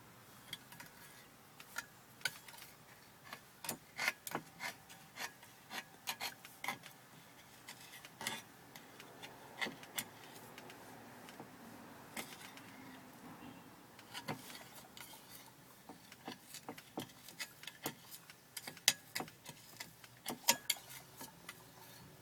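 Kurt Kinetic bicycle trainer making an irregular grinding noise of sharp clicks and scrapes, in two spells with a quieter stretch about halfway through: an unwanted noise from the trainer.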